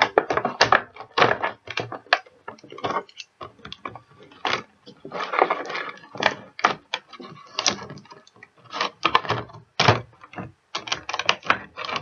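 Thin clear plastic packaging crinkling and crackling in irregular bursts as hands peel it off a figure.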